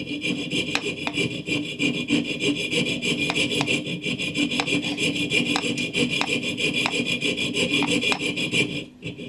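Piercing saw with a fine 32-teeth-per-inch blade cutting a small brass block, a steady run of rasping back-and-forth strokes that stops shortly before the end. The blade cuts on the pulled-down backstroke, worked slowly.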